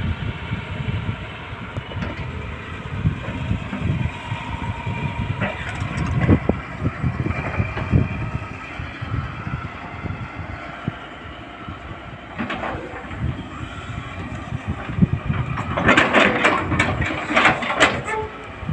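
Tata Hitachi 210 crawler excavator's diesel engine running under working load. Near the end comes a couple of seconds of louder clattering as the bucket works through stony soil.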